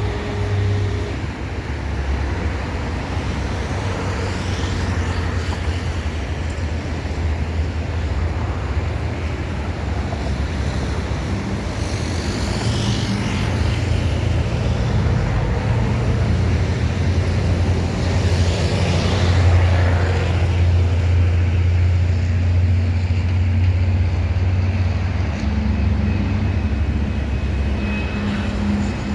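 Road traffic going by, several vehicles passing over a steady low rumble. Underneath, the approaching Boeing 737-400 freighter's jet engines grow slowly toward the end.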